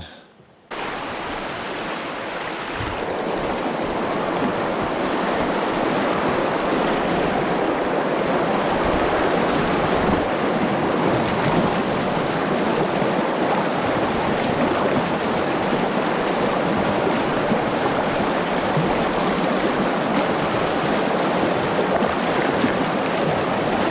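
Rushing water of river rapids: a steady, even sound that starts suddenly about a second in, grows a little louder over the next few seconds and then holds.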